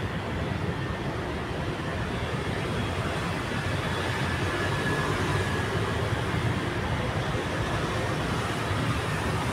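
Electric hair clippers buzzing steadily as they run through short hair, over a steady background hum.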